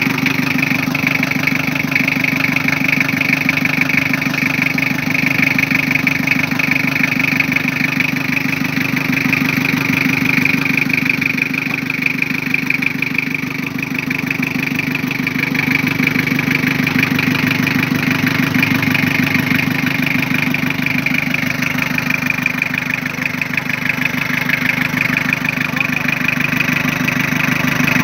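Toyota 3L 2.8-litre four-cylinder diesel engine idling steadily.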